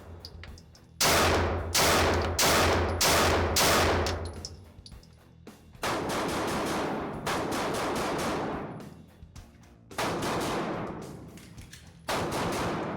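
Glock 19X 9mm pistol firing: five loud shots in quick succession about half a second apart, then a quieter rapid string of shots, then two more single shots near the end, each shot trailing off in an echo.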